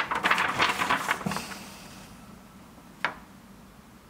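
Sticker sheets and paperwork rustling and crinkling as they are handled, for about the first second and a half. Then a single sharp click about three seconds in.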